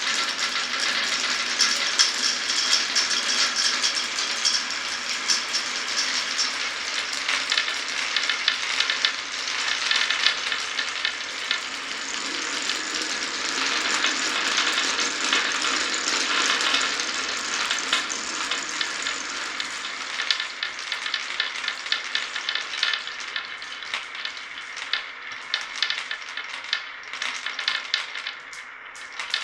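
Many marbles rolling and clattering together down a wooden marble run, a dense continuous rattle of small clicks. After about twenty seconds it thins into scattered separate clicks as fewer marbles remain on the track.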